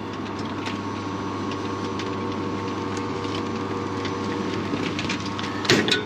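Fracino espresso machine running its pump with a steady hum while a shot is pulled. A short clatter comes near the end.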